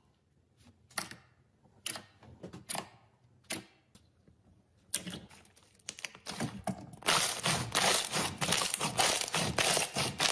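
Slime being squeezed and poked by hand: a few sharp pops and clicks, spaced about a second apart, then from about seven seconds in a dense run of crackling and clicking.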